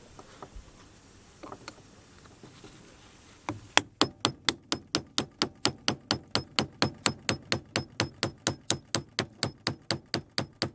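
Small hammer tapping rapidly on the end of a screwdriver, about four or five blows a second, to drive the steel magnetic shunts out of a microwave oven transformer's core. A few light clicks come first, and the steady tapping starts about three and a half seconds in.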